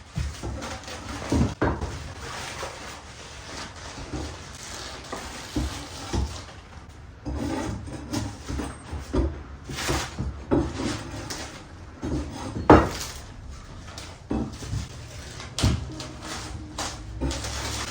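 Irregular knocks, scrapes and clattering of hard objects against wood, as in hand demolition work, with one sharp, louder knock about two-thirds of the way through.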